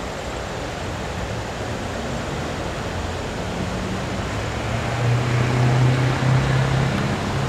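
Steady rushing noise of the flooding Delaware River's fast brown current. A low hum, like a passing engine, swells in about five seconds in and eases near the end.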